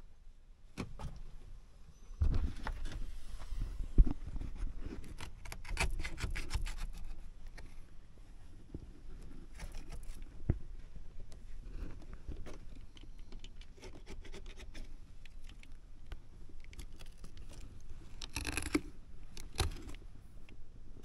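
Handling noises of fabric being fitted and smoothed onto glued van panels: irregular scraping, rubbing and rustling with scattered clicks and knocks, the sharpest knock about four seconds in.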